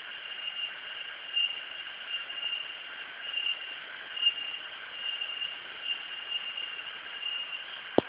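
Insects calling in a steady high-pitched drone that swells about once a second, over a faint hiss; a sharp click right at the end.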